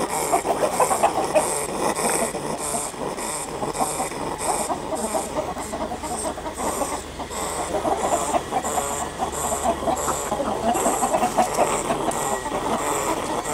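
A flock of domestic chickens clucking continuously. Under it runs a high-pitched chirping pulse that repeats evenly about three times a second.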